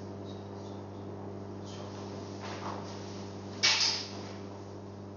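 Steady low hum of room noise, with a short, loud scraping or rustling noise about three and a half seconds in and a couple of fainter ones before it.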